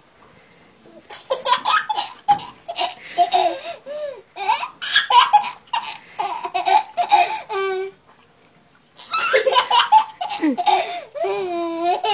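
Children laughing in repeated bursts, a toddler's high laughter among them, with a short lull about two-thirds of the way through.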